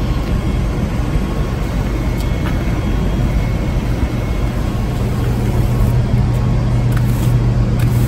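A steady low machine drone with a hum, growing slightly louder about five seconds in, while a push broom sweeps dust and chips across a concrete slab.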